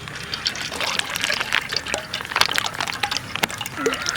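Coconut oil being poured into a frying pan, an uneven run of splashes and drips.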